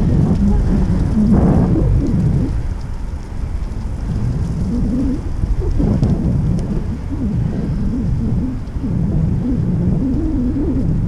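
Wind buffeting the microphone of a camera riding on a moving bicycle: a heavy, uneven rumble that surges and dips.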